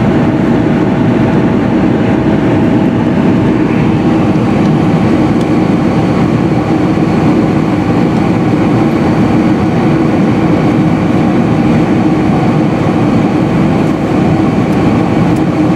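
Steady airliner cabin noise on the descent before landing: jet engines and rushing airflow heard from inside the passenger cabin as an even, low rumble.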